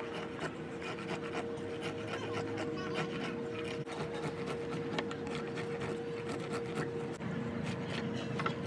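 Steel file rasping a wooden sickle handle: repeated scraping strokes of the file's teeth across the wood as the handle is shaped.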